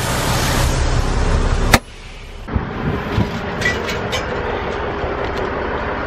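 Semi truck's diesel engine running with a steady rumble, cut off by a single sharp clunk a little under two seconds in. After that the level falls to a much quieter background with a faint steady hum and a few light clicks.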